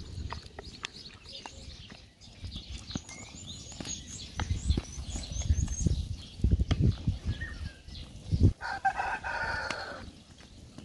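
A rooster crowing once, a pitched call of about a second and a half near the end, with small birds chirping high above and scattered low knocks and thumps from work close by.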